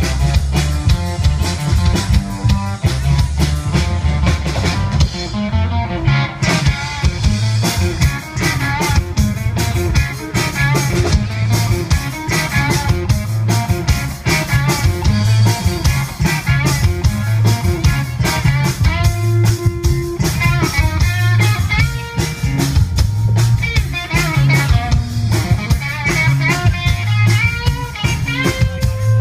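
Live rock band playing: two electric guitars over a full drum kit keeping a steady beat.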